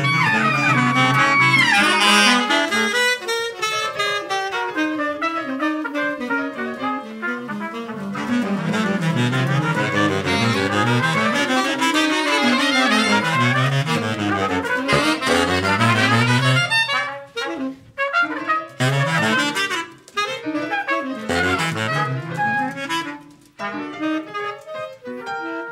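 Freely improvised jazz from a horn group of baritone and alto saxophones, trumpet and a high straight reed, with piano, playing dense overlapping lines. After about two thirds of the way in the texture breaks into short separate stabs with brief gaps.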